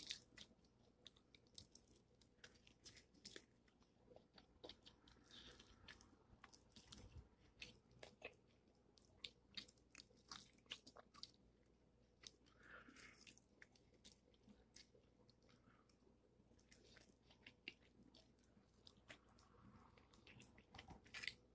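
A person chewing and biting fried chicken, faint and close up: scattered short crunches and mouth clicks.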